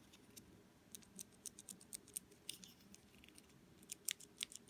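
Mechanical keyboard switch in a key tester, modified with a silicone O-ring, being pressed over and over: a run of faint, sharp little clicks, about three a second. The O-ring cushions the slider's release so it hits silicone instead of plastic, keeping the switch quiet.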